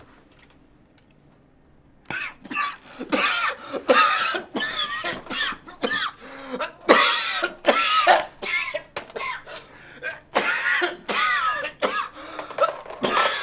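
A person coughing hard and over and over in a long fit, starting about two seconds in after a quiet start.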